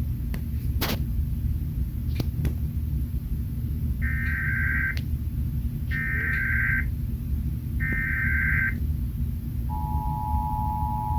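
Emergency Alert System test tones from a TV: three one-second bursts of screechy digital header data, evenly spaced, then the steady two-tone EAS attention signal starting near the end. A low hum runs under it throughout.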